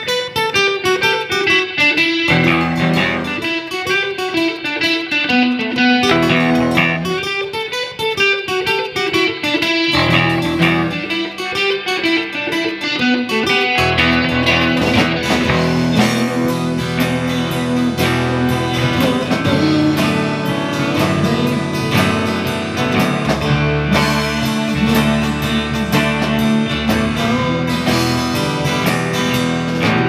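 Live rock band playing, with electric and acoustic guitars to the fore over bass and drums. A guitar-led passage in the first half fills out with much more low end about halfway through.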